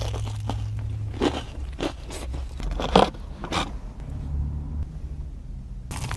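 Crunchy bites into a crispy battered Korean corn dog: several sharp crunches, the loudest about three seconds in, with chewing between and a steady low hum underneath.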